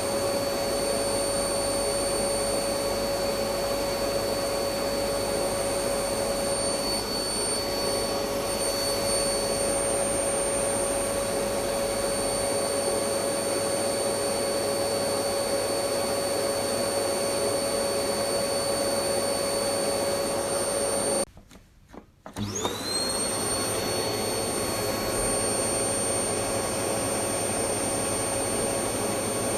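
Vacuum cleaner motor running steadily, a constant whine over its airflow noise. About two-thirds of the way through it cuts out for about a second, then starts again with a rising whine as the motor spins back up to speed.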